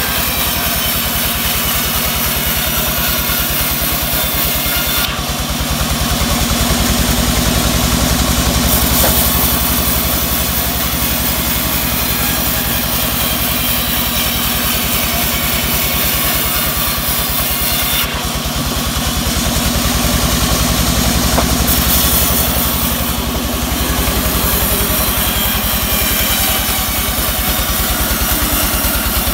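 Sawmill band saw running and cutting teak into boards: a steady machine drone under the hiss of the blade in the wood. The hiss eases off and comes back twice as the timber is fed through.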